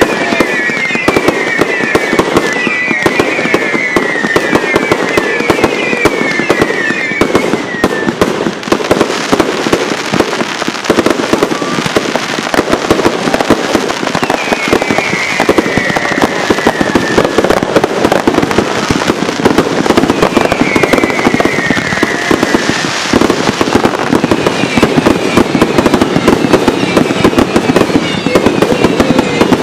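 Fireworks going off in a dense, continuous barrage of rapid cracks. Runs of short falling whistles cut through in several stretches, in the first seven seconds, around the middle, and again near the end.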